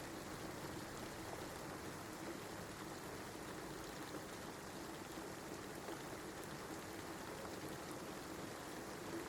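Steady rain, a constant even hiss with faint scattered drop ticks.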